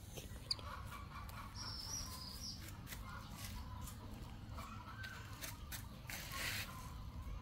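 Faint outdoor background with soft, scattered animal calls, a sharp click about half a second in, and a brief rustle near the end.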